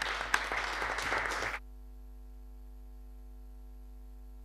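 A small group applauding, hand claps that cut off abruptly about a third of the way in. After that only a steady electrical mains hum is left.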